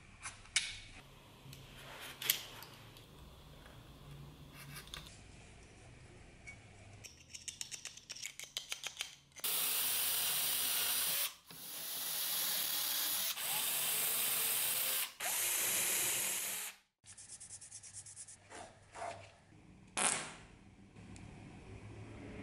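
Utility knife scraping and cutting at a wooden handle blank, with a couple of sharp clicks. Then a cordless drill runs in four loud bursts of one to two seconds each, drilling holes in a knife-handle piece.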